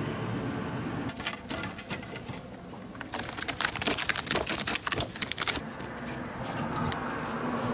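An excited calico cat scraping at the wire mesh of its pen. A few light clicks lead into a fast, rasping metallic clatter that runs for about two and a half seconds from about three seconds in, then stops suddenly.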